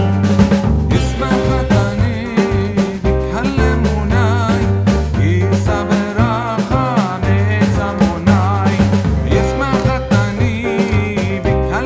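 Music with a sung vocal line, a bass and drums keeping a steady beat.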